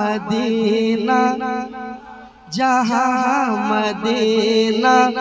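A male voice singing a naat, drawing out long, ornamented held notes in two phrases, with a short break for breath about two and a half seconds in.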